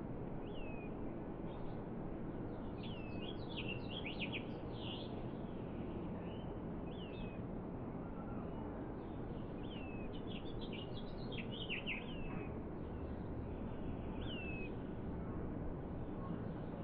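Small birds chirping: short high chirps and downward-sliding call notes, with two busy bursts about three and ten seconds in, over a steady low rushing background.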